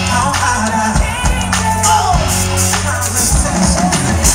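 Live band music through a concert PA, heard from within the crowd: a singer's voice over steady bass, drum kit and guitars.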